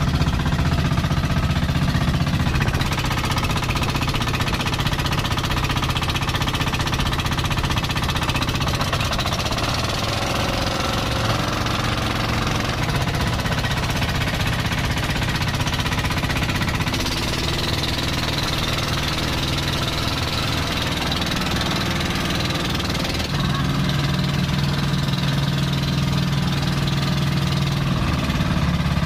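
Small single-cylinder diesel inboard engines of an outrigger boat running steadily under way, a fast, even clatter.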